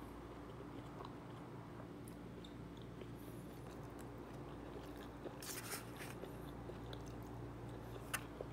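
A person chewing food with faint mouth clicks and small crunches, over a steady low hum.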